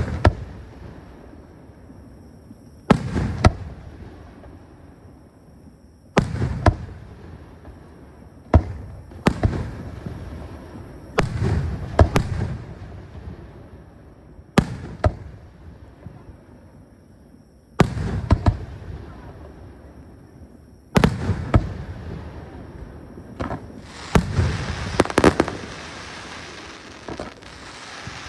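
Aerial fireworks shells bursting one after another, a sharp bang every few seconds, each followed by a rolling rumble that dies away. The bangs come closer together with crackling near the end.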